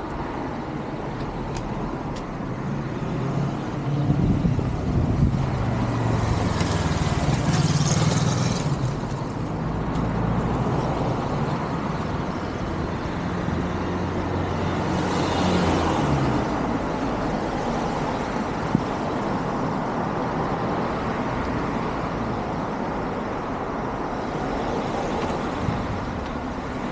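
Road traffic: a vehicle engine's low drone runs close by for several seconds, and vehicles pass twice with a rising and fading tyre hiss, over a steady traffic hum.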